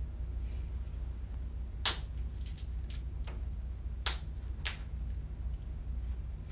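A large wafer communion host being broken by hand at the fraction: a series of short, sharp snaps, the loudest about two seconds in and again about two seconds later, over a steady low room hum.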